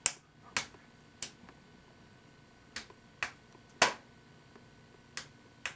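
A series of about eight sharp, separate clicks or taps at uneven intervals, over quiet room tone.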